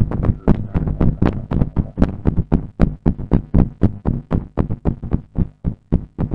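Music with a fast, steady drum beat and heavy bass, about four to five hits a second.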